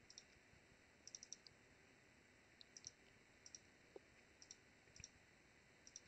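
Faint computer mouse clicks over near silence: scattered single clicks and quick runs of two to four.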